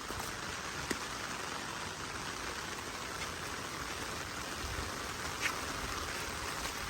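Steady rain falling, with a couple of faint ticks.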